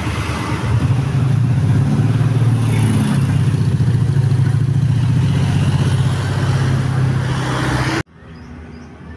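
Bus diesel engine running loud and steady at close range, then cutting off suddenly about eight seconds in.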